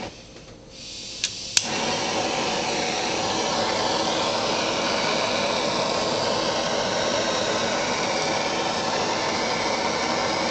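Butane kitchen torch flame hissing steadily as it caramelises the sugar topping of a crème brûlée. It is fainter at first, then two sharp clicks come about a second and a half in, and the hiss turns loud and even.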